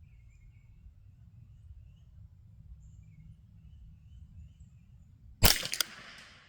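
Single shot from a CZ 512 semi-automatic .22 LR rifle about five seconds in: a sharp crack followed by two smaller quick cracks and a short fading tail. Faint bird chirps sound before it.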